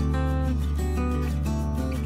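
Background music: acoustic guitar strumming over a steady bass.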